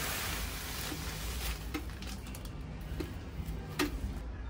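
Light rustling with a few short clicks and taps from hands handling a plant pot and peat-perlite potting mix.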